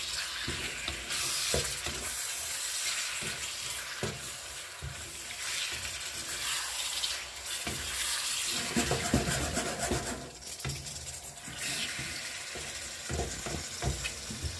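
Chicken pieces and onions sizzling in hot oil in a frying pan, with a wooden spatula scraping and knocking against the pan as they are stirred. The stirring is busiest in the middle and again near the end.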